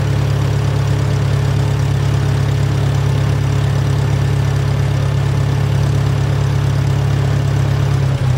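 1956 Cockshutt Model 30 tractor's four-cylinder engine running steadily at a raised throttle, fast enough for its alternator to charge the battery. The engine is still cold, with the choke partly out.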